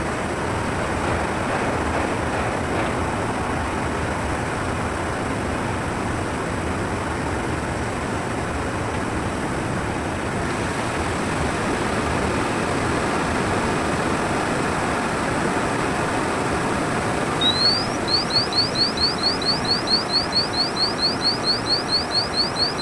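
Steady blast furnace plant machinery noise. About seventeen seconds in, an electronic warning alarm starts: one rising sweep, then a rapid run of short rising chirps, about five a second.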